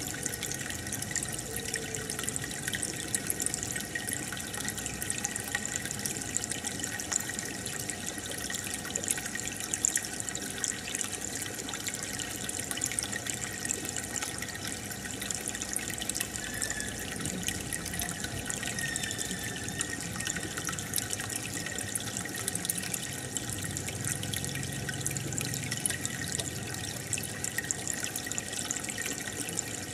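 Aquarium water bubbling and trickling steadily, with a constant patter of tiny pops and drips.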